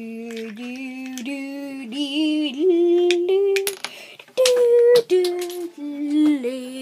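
A child humming a wordless tune, holding one note after another as the pitch steps up and down, with a few sharp clicks in between.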